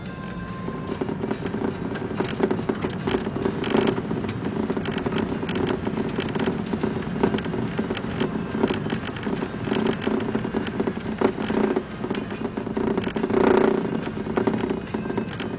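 A car driving along a rough, patchy road, heard from inside: a steady engine hum under tyre and road noise full of small crackles and knocks.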